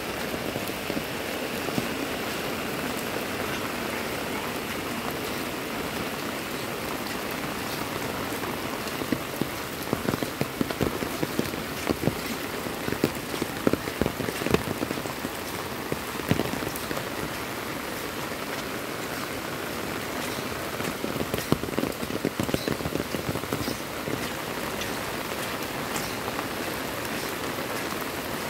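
Heavy rain falling steadily on a wet paved lane, a dense even hiss. Bursts of louder, closer taps come about a third of the way in and again about three quarters of the way through.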